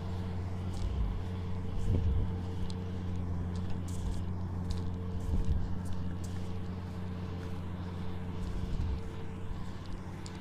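Kubota tractor's diesel engine running steadily under load, a low even hum with a faint steady whine above it. A few soft knocks come through about two and five seconds in.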